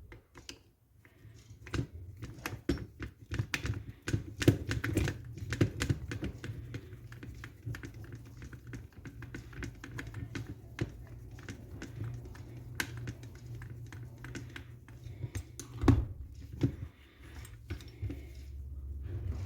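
Irregular light clicks and taps of small airsoft rifle parts and hand tools being handled during disassembly, over a steady low hum.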